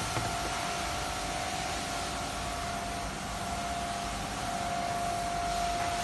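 Woodworking machinery running steadily: an even hiss with a steady high whine.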